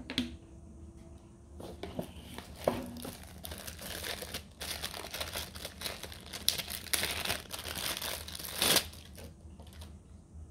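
Thin clear plastic packaging bag crinkling as it is handled, in irregular rustles for several seconds, loudest near the end. A light tap at the very start as a camera battery is set down on the table.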